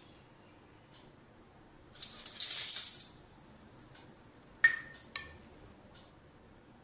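A steel spoon scraping through thick curry in a ceramic serving bowl for about a second, then two sharp clinks of the spoon against the bowl, each ringing briefly.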